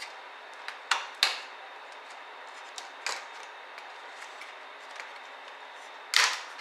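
Clicks and knocks of small hard laptop parts being handled during disassembly: two close together about a second in, one about three seconds in, and a louder clack near the end, over a steady background hiss.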